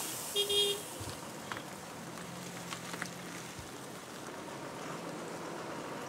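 Road traffic: vehicles moving along a pot-holed road, with a short tonal sound like a hoot about half a second in and a low engine hum in the middle.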